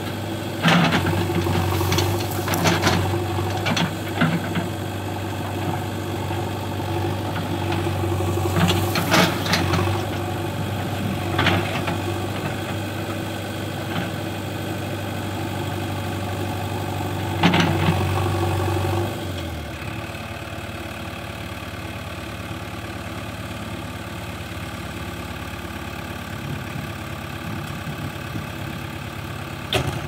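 JCB 3DX backhoe loader's diesel engine running under load while the backhoe works through brush, with scattered sharp cracks and knocks. About two-thirds of the way through the engine drops to a lower, quieter speed and runs on steadily.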